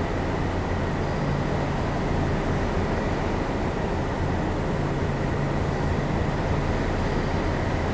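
Steady low machine rumble and hum, with a faint thin high whine above it.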